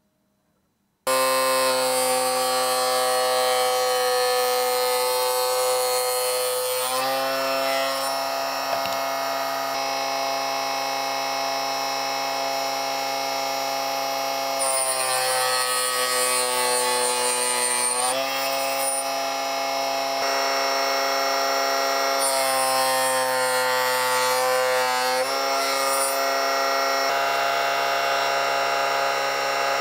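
Homemade mini table saw, a 24 V 775 DC motor belt-driving a 60 mm circular blade, running with a steady high whine that starts abruptly about a second in. Its pitch sags several times as wood is fed through the blade and comes back up after each cut.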